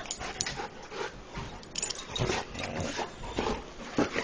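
Dogs breathing and moving about close to the microphone: soft, uneven noises with a few light clicks.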